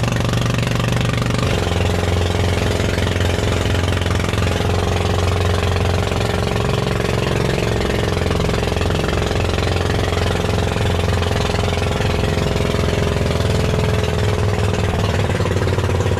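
Fishing boat's engine running steadily, its note shifting about a second and a half in, as the boat works its way out under power.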